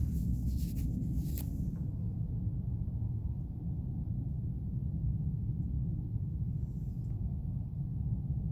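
Low, steady rumble of an aircraft passing overhead in the night sky, with a few brief crackles in the first second or so.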